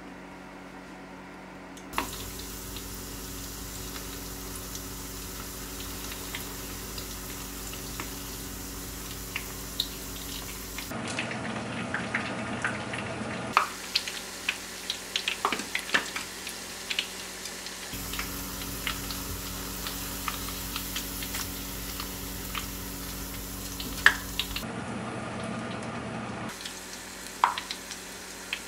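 Battered acacia flower fritters deep-frying in hot oil in a stainless saucepan: a steady sizzle with many sharp crackles and pops. The first couple of seconds are quieter, before the frying starts.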